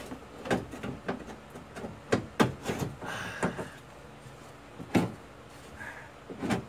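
Metal clunks and knocks at an irregular pace as a power window regulator is twisted and worked around inside a car door shell, its arms hitting the door's sheet metal, with a short scrape about three seconds in.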